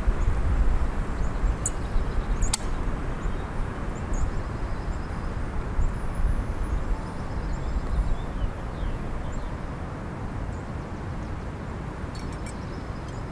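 Wind buffeting the microphone, a steady low rumble that eases off toward the end, with faint bird chirps and a single light click about two and a half seconds in.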